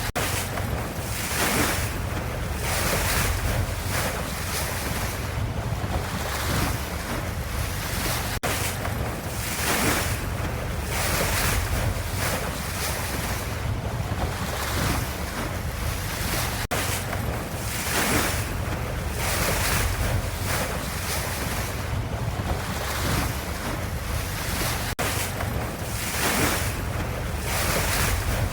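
Ocean waves: a continuous wash of water that swells and eases every second or two, with a tiny break about every eight seconds.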